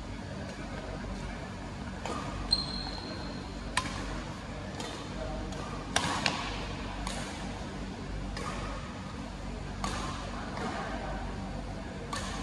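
Badminton rackets hitting a shuttlecock during a rally: a string of sharp hits about a second or so apart, the loudest about two and a half and six seconds in. A short high squeak comes just after the first loud hit.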